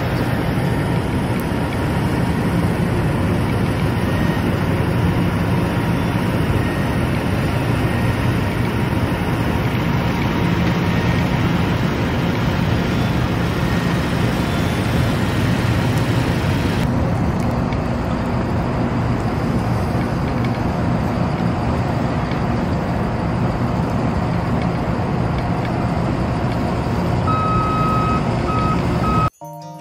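Steady, loud rumble of a large motor vehicle's engine running close by, with a few faint high beeps near the end.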